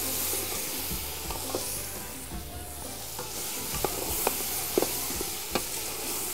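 Tomatoes and spices sizzling in a large aluminium cooking pot while a wooden spoon stirs them, with several short knocks of the spoon against the pot.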